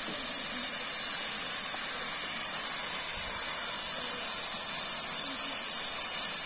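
Steady rushing hiss of a small waterfall spilling into a pool.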